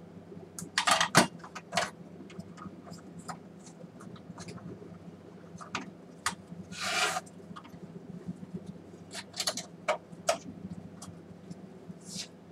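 Hands working on a disassembled projector's plastic chassis and parts: irregular clicks, small knocks and scraping rubs, with a longer scrape about seven seconds in. A steady low hum runs underneath.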